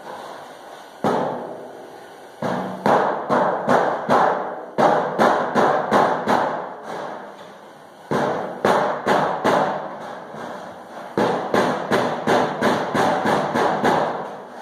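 Rubber mallet pecking along the bent-over lip of a sheet-metal wheel tub, setting the edge crisp and flat. Quick taps about three a second, in runs of six to nine with short pauses between.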